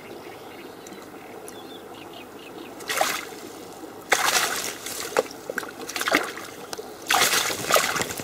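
Water splashing and sloshing in a series of short bursts, starting about three seconds in and coming again and again toward the end.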